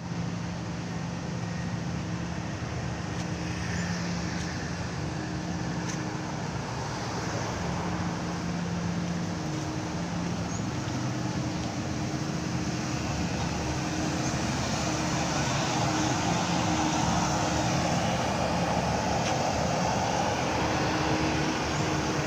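Hydraulic static pile driver's engine and hydraulic power unit running with a steady hum, getting somewhat louder about two-thirds of the way through.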